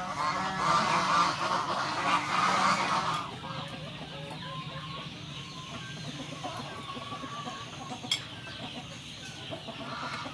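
Domestic fowl calling: a loud run of calls for about three seconds, then the sound drops suddenly and fainter calls go on, with one sharp click about eight seconds in.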